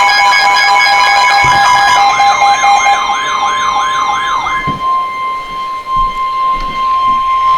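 Emergency Alert System attention tones: several steady high tones layered with a siren-like warble that swings up and down about three times a second. About four and a half seconds in, the warble and the other tones stop, leaving one steady tone near 1 kHz.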